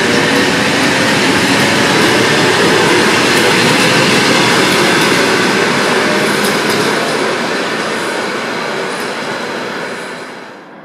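Passenger train running past, a steady rumble and rush of wheels on rail with a few clicks from the rail joints, fading away near the end as the train moves off.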